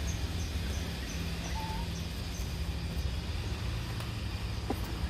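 Steady low outdoor rumble, with a faint run of short high chirps, about three a second, that stops about two and a half seconds in, and a single short chirp about a second and a half in.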